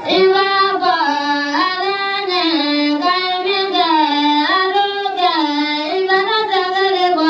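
A single high voice singing a slow melody that steps up and down between a few held notes, cutting in suddenly.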